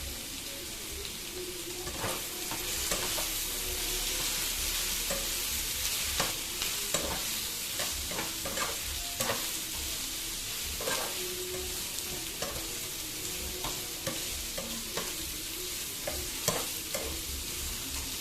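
Cubed potatoes and spices frying and sizzling in oil in a pan while being stirred. The stirring gives irregular knocks and scrapes against the pan throughout.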